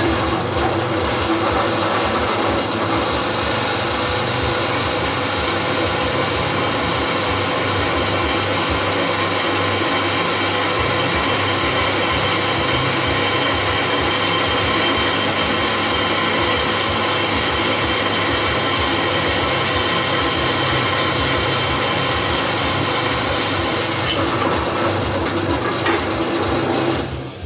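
Benchtop drill press running at reduced speed as a freshly sharpened 6 mm bit cuts dry through a metal plate, a steady noise with a constant hum, cutting off near the end.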